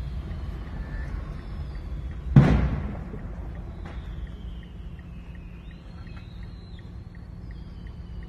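A single loud blast from a fireworks explosion about two and a half seconds in, dying away over about half a second, over a steady low rumble. High wavering tones follow in the second half.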